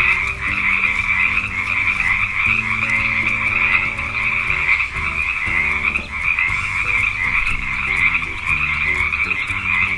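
Frogs croaking in a continuous dense trill that dips briefly about six seconds in.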